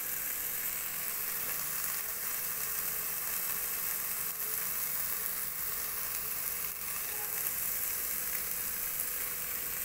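A pan of chicken, onion and capsicum in masala and stock sizzling steadily on the stove, with a few faint ticks.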